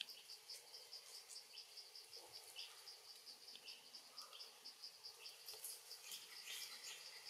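Faint insect chirping, an even, steady pulse of short high chirps at about five a second.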